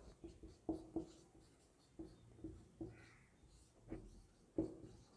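Marker pen writing on a whiteboard: quiet, short separate strokes, about two or three a second, as words are written out.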